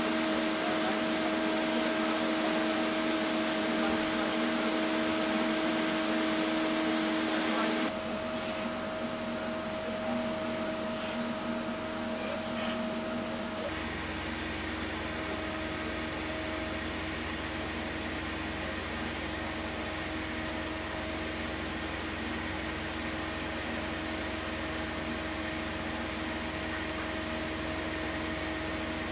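Steady mechanical hum with a few constant tones over a noise haze, like a running engine or machine. The sound shifts abruptly about eight seconds in and again about fourteen seconds in.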